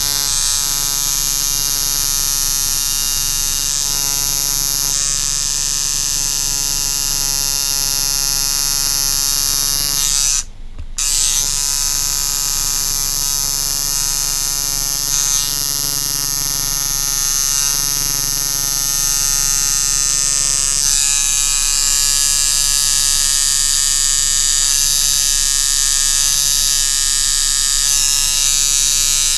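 Coil tattoo machine buzzing steadily as it lines skin. It cuts out for about half a second roughly a third of the way in, then starts buzzing again.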